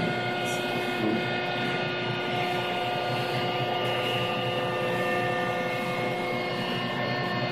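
Steady hum of running industrial machinery, with several steady whining tones held over a constant rushing noise.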